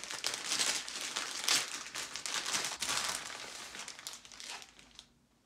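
Kraft paper shipping mailer and a small plastic bag crinkling and rustling in a series of rough strokes as they are handled and the bag is pulled out of the mailer. The rustling fades out near the end.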